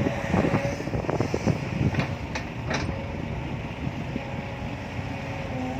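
Diesel engine of heavy earthmoving machinery running, with a steady low rumble and a thin whine. Irregular clunks and sharp knocks come in the first three seconds, and wind buffets the microphone.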